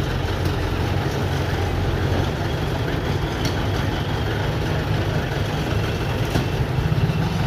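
Truck engine idling close by: a steady low rumble. This is the traffic-police tow-crane truck, and street traffic runs around it.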